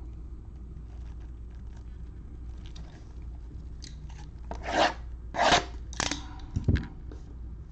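Gloved hands handling a shrink-wrapped cardboard box: the plastic wrap rubs and crinkles, with three louder scrapes about halfway through and a short low knock soon after.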